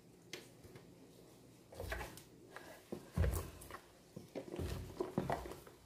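Wooden spoon stirring thick soap paste in a plastic basin, with irregular knocks and scrapes against the basin, starting about two seconds in.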